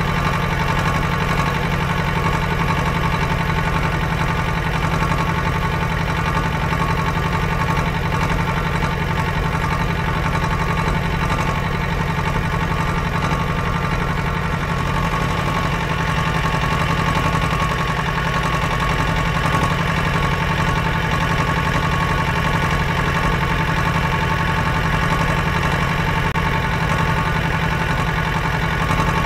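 An engine running steadily at one even speed, with no change in pitch or loudness.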